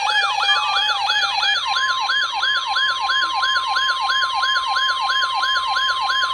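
An electronic siren yelping, its pitch sweeping about four times a second, over a steady alert tone. Under two seconds in, the steady tone steps up to a higher pitch, the NOAA Weather Radio warning alarm tone that precedes a new warning.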